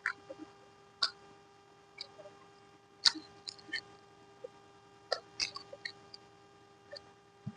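Close-miked mouth sounds of eating: scattered wet lip smacks and sharp clicks while chewing, with a steady faint electrical hum underneath.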